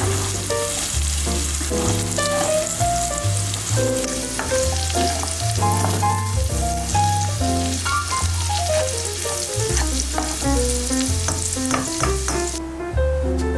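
Food sizzling as it fries in a hot pan, a steady hiss that cuts off suddenly near the end, over background music with a melody and bass line.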